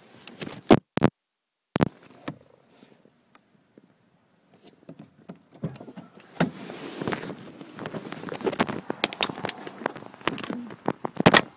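Phone-camera handling noise as the filmer climbs out of a car: a few sharp knocks, then dense crackling and rustling from about halfway in.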